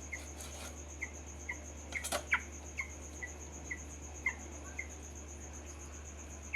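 Young broiler chickens peeping, short single peeps about two a second, over a steady high-pitched whine and a low hum. A sharp knock comes about two seconds in.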